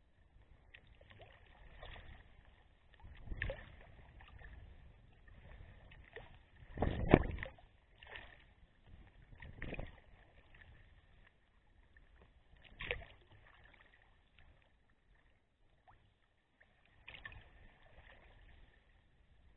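Sea kayak being paddled through choppy water: irregular splashes and slaps of water against the hull and paddle, the loudest about seven seconds in.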